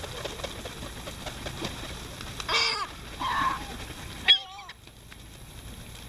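Gulls squabbling over food, giving two harsh calls about halfway through, then a sudden sharp click and a short wavering call about two-thirds in.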